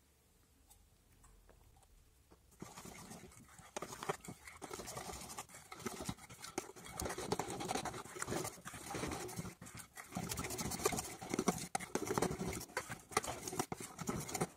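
Metal spoon stirring thick financier batter in a ceramic bowl, scraping and clicking against the bowl's sides as the melted butter is worked in. Starts about two and a half seconds in, after a faint opening, and goes on steadily.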